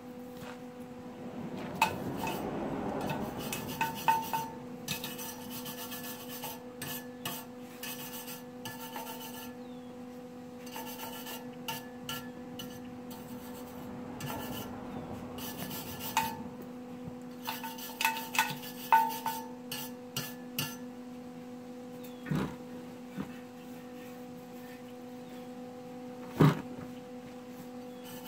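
Arc welding on a steel muffler and its bracket: short bursts of welding crackle, the longest about two seconds in and another around fourteen seconds, with scattered sharp clicks and a steady hum underneath.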